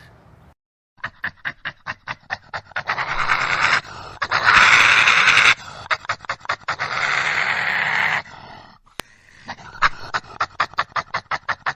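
Badger calling: rapid runs of short harsh pulses, several a second, that run together into longer rasping calls. This happens twice, with a short break about nine seconds in.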